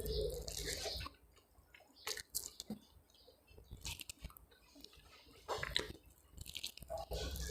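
A person chewing a mouthful of rice and fried eggplant, with wet, squishy mouth sounds and small clicks. It is louder in the first second, again about five and a half seconds in, and near the end.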